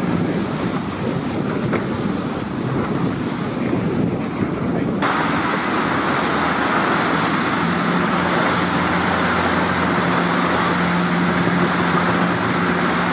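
Wind buffeting the microphone and water rushing past a motorboat, with a steady engine hum underneath. About five seconds in, the noise abruptly turns brighter and stronger.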